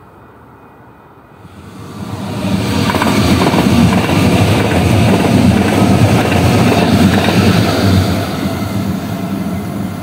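CTrain light rail train passing close by at speed. The wheel and rail noise builds quickly about two seconds in, stays loud for several seconds as the cars go by, and starts to fade near the end as the train pulls away.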